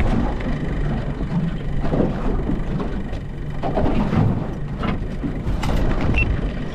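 Outboard motor running low and steady at slow-trolling speed, with gusty wind noise buffeting the microphone.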